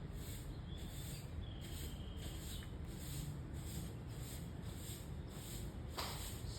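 Insects chirping in an even, high-pitched pulse about twice a second, over a low steady background hum.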